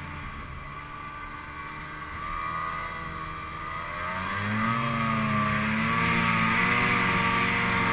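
Ski-Doo snowmobile engine pulling through deep snow. It runs lower for the first few seconds, then opens up about four seconds in and holds high with a wavering pitch before easing off at the very end.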